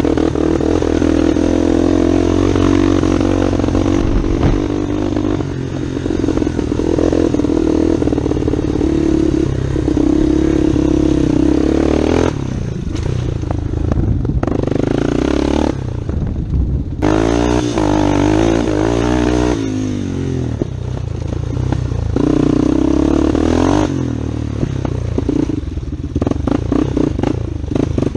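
Yamaha Warrior 350 ATV's single-cylinder four-stroke engine running under way, the revs rising and falling with the throttle. The throttle is rolled off briefly a couple of times, about twelve and sixteen seconds in, and the revs climb again after each.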